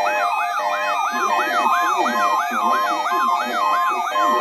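Weather radio alert siren sounding before an emergency bulletin: a rising electronic sweep repeating about three times a second, with a steady tone cutting in and out over it.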